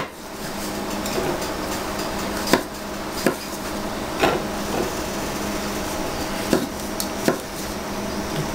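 A kitchen knife knocking on a wooden cutting board as button mushrooms are quartered: about half a dozen sharp chops at irregular intervals.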